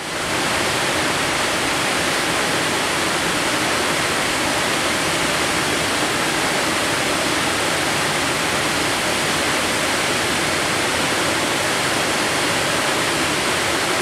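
Looking Glass Falls, a waterfall dropping over a rock ledge into a plunge pool: a steady, even rush of falling water that fades in at the very start.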